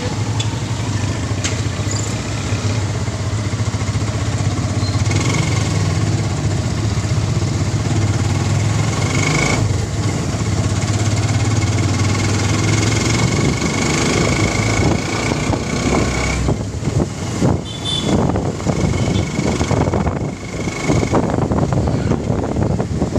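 Small motorcycle engine running steadily while riding along a street, with passing traffic. The low engine hum is even at first and grows more uneven with road and wind noise about halfway through.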